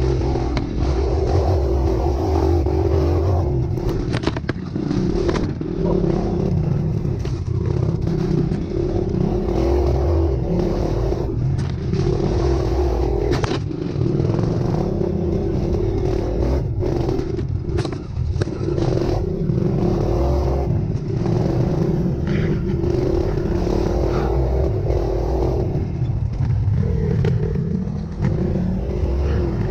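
Off-road vehicle engine running steadily under load on a rocky trail, with scattered clatter, knocks and scrapes from the rough ground.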